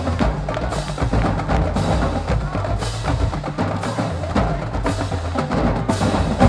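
High school marching band playing a percussion-heavy piece. Drums and cymbals hit about once a second over a low brass bass line, and the band cuts off abruptly at the end.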